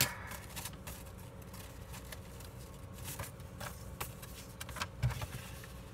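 Loose paper pages being handled and restacked: faint rustling broken by a few scattered light taps, with a soft knock about five seconds in.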